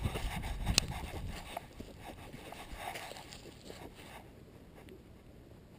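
A dog's footsteps on dirt and dry leaves, with the collar-mounted camera rubbing and scraping against the dog, and a sharp click about a second in. The rustling slowly dies away, staying faint after about four seconds.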